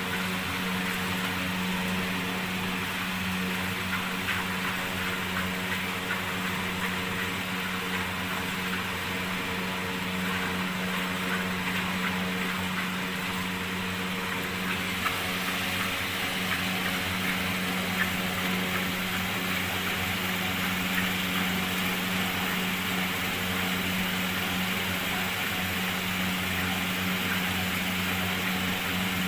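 Hand milking: streams of milk squirting from a cow's teats into a plastic bucket, a continuous hiss with a steady low hum underneath.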